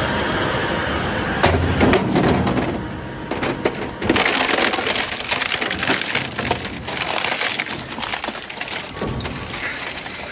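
An appliance shredder crushing scrap household appliances: a steady machine noise, then sharp cracks about one and a half to four seconds in, followed by continuous cracking and breaking as the scrap is torn apart.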